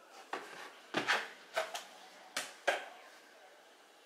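Metal tablespoon knocking and scraping against a plastic tub of cornstarch and a plastic mixing bowl while cornstarch is spooned out: a quick run of sharp clicks and taps over the first three seconds.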